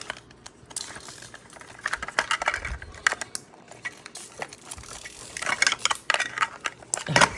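Small plastic toy pieces and plastic wrapping being handled during unwrapping: scattered sharp clicks and taps, with bouts of crinkling about two seconds in and again from about five and a half seconds.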